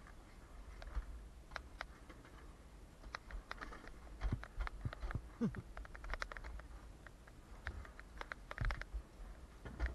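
Alpine coaster sled rolling slowly on its steel track, with scattered, uneven clicks and knocks from the wheels and frame over a low rumble, and one brief squeak about five and a half seconds in.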